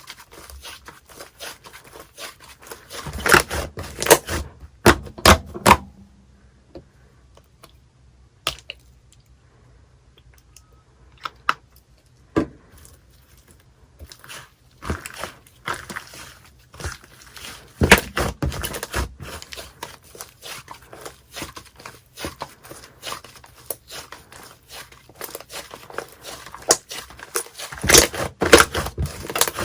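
Slime being pressed and stretched by hand, making clusters of quick clicks and pops, with a quieter pause partway through.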